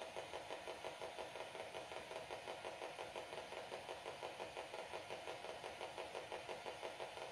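A steady, machine-like pulsing hum, about four to five pulses a second.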